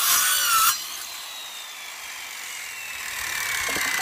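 Corded circular saw finishing a cut through a pallet slat, cutting out about 0.7 s in. The blade's whine then falls steadily in pitch as it spins down, with a faint knock of wood near the end.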